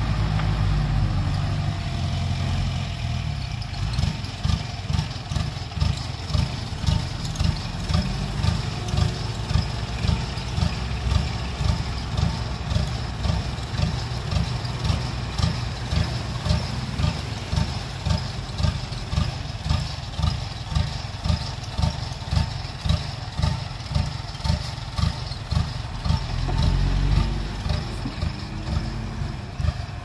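Diesel dump truck engine running while its hydraulic hoist raises the loaded tipper bed to dump soil, the engine note pulsing regularly a little under twice a second. Near the end the engine briefly runs louder and smoother.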